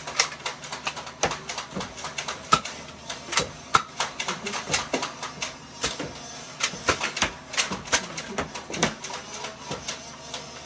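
Nerf foam-dart blasters firing and darts striking, heard as a rapid, irregular series of sharp clicks and knocks, several a second.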